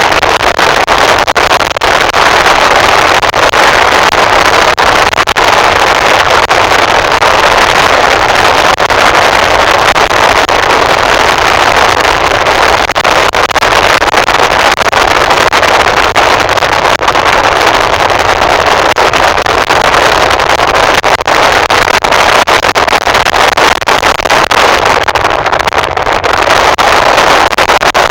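A road vehicle travelling at speed, its steady loud rush of wind and road noise crackling with wind buffeting on the microphone.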